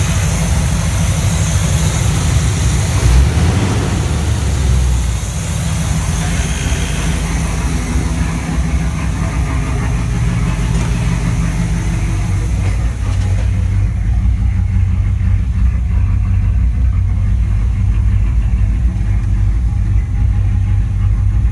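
1982 Pontiac Trans Am's V8 idling steadily on a cold start. About two-thirds of the way in the sound turns duller.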